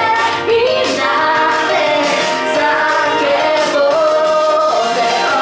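A woman singing a pop song into a microphone over loud backing music, her melody sliding and held across several notes.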